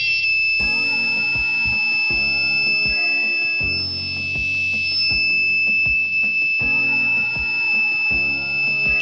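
Piezo buzzer of a homemade rain alarm sounding one steady high-pitched tone without a break, the sign that the rain sensor has detected water and switched the buzzer on through its relay. Background music with a beat plays underneath.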